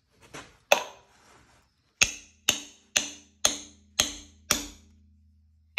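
A hammer striking a bolt set in an engine crankshaft's pilot bore, which is packed with bread, to push the old pilot bushing out hydraulically. One sharp hit comes early, then six sharp, evenly spaced metal hits at about two a second, each ringing briefly, and one more right at the end.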